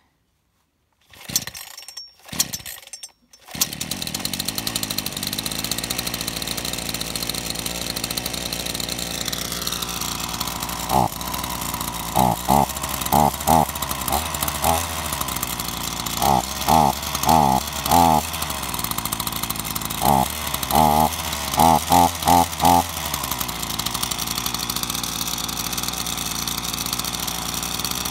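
A new Sterwins PCS2-35.3 two-stroke chainsaw pull-started on its first run with the choke off: a couple of quick pulls, then it catches about three and a half seconds in and runs steadily. From about 11 s to 23 s it is revved in many short throttle blips in clusters, then it settles back to a steady idle.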